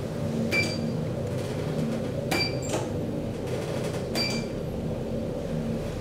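Elevator car in motion with a steady hum. Three short high beeps sound about two seconds apart, each with a click.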